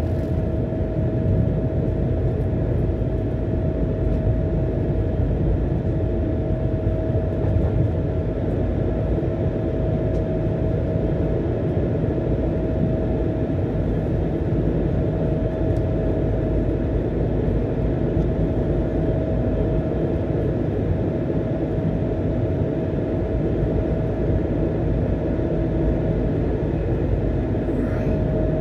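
Airbus A220-100 cabin sound in the climb just after takeoff: the Pratt & Whitney PW1500G geared turbofan engines running at climb power, a steady rushing noise with a constant mid-pitched hum over it.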